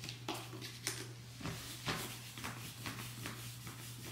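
Deodorant being rubbed onto an underarm: a series of short rubbing strokes, over a faint steady low hum.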